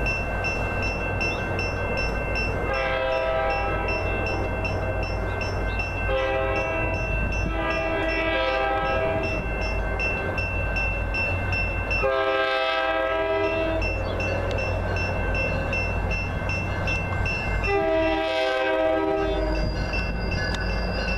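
Commuter train horn sounding a series of about five blasts, some short and some long, as the train approaches a grade crossing. Under the horn, the crossing signal bell rings in a fast, even ding throughout.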